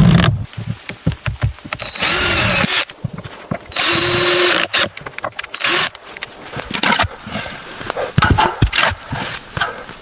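A power tool running in two short bursts of under a second each, amid many knocks and clatter of building work.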